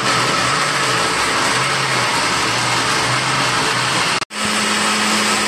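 Countertop electric blender running at full speed, puréeing a jug of momo achar (chutney) into a liquid sauce: a loud, steady motor whir. It breaks off for an instant about four seconds in and then carries on with a steadier, lower hum.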